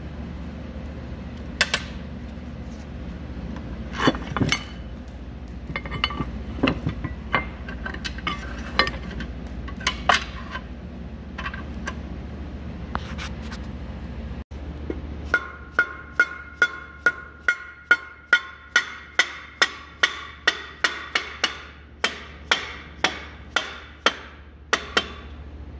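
Dead-blow hammer striking an electric motor's end bell to drive it home over the new bearing. About halfway through comes a quick, even run of about two dozen strikes, with a faint ring from the metal. Before that there are scattered clinks and knocks of parts being handled, over a steady low hum.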